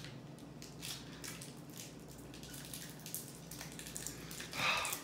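Plastic film of an individually wrapped cheese slice being peeled and unwrapped by hand: soft, scattered crinkles and small ticks, with a brief louder noise near the end.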